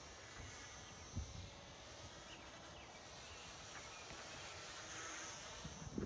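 Faint, distant buzz of the Eachine Mini Mustang P-51D RC plane's small electric motor and propeller in flight.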